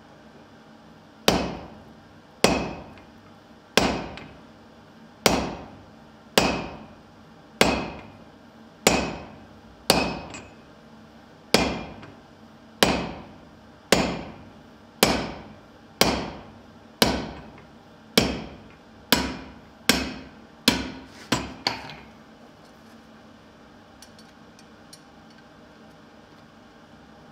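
Blacksmith's hand hammer forging a glowing steel bar on an anvil: about twenty blows, roughly one a second, each ringing briefly, quickening into a few rapid blows near the end before stopping.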